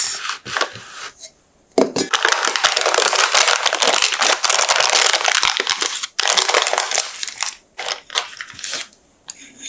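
Baking parchment (cooking sheet) crinkling and tearing as it is peeled away from a baked sponge cake. Dense crinkling begins about two seconds in and lasts about four seconds, then thins to a few scattered crackles.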